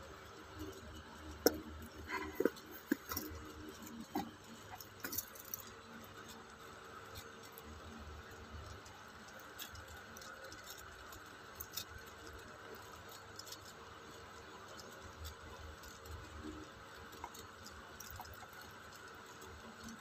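Handling noise from a stainless steel watch bracelet and its box: a cluster of light clicks and clinks in the first five seconds or so, then only an occasional faint tick over low steady background noise.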